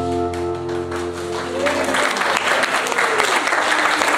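A held musical chord rings on and fades out about two seconds in, while a crowd of guests breaks into applause that carries on to the end.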